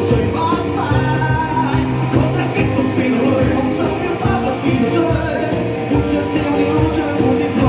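Live rock band playing an upbeat song, with a sung melody over electric guitar, bass and a steady drum beat.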